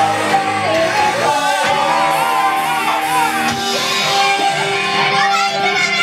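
Live pop-rock band music with singing and shouted voices.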